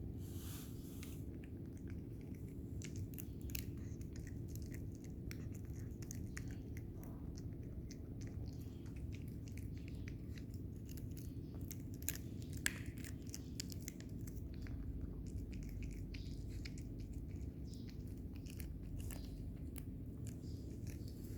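A cat chewing its food, with many quick, irregular crunches and a slightly louder click about twelve seconds in, over a steady low hum.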